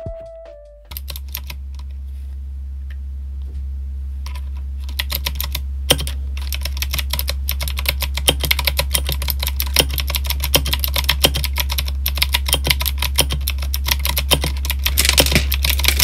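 Typing on a 60% mechanical keyboard fitted with Akko SA-profile PBT dye-sub keycaps: scattered keystrokes at first, then fast, continuous typing from about five seconds in, over a steady low hum.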